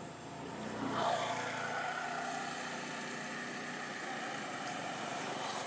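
Motor vehicle passing on the road: its engine noise swells to its loudest about a second in, then carries on steadily.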